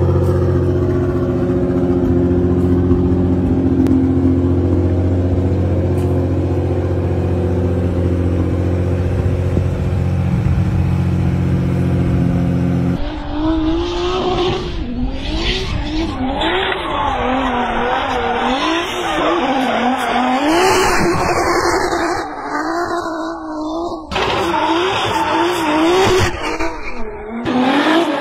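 Turbocharged VR6 engine of an Audi RS5 idling steadily. About thirteen seconds in, the sound cuts to the engine revving up and down hard while the car drifts, with its tyres squealing.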